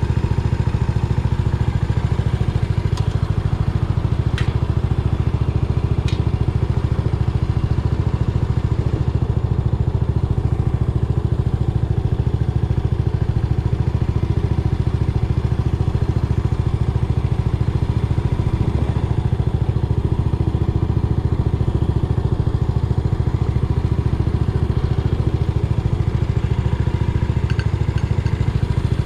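Yamaha SR400's air-cooled single-cylinder engine running steadily at an even speed, with a few faint clicks about three to six seconds in.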